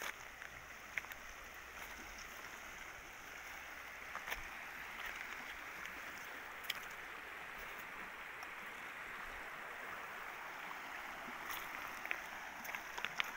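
A shallow river running over stones, a steady rush of water. A few sharp clicks of pebbles knocking underfoot come through, more of them near the end.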